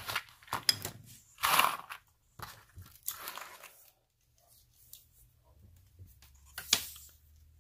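Rustling, crinkling handling noises as a beaded necklace is handled: three bursts in the first half, then a single sharp click near the end.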